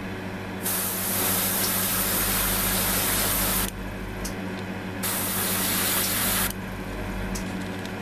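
Airbrush spraying paint in two bursts of hiss, the first about three seconds long and the second about a second and a half, over a steady low hum.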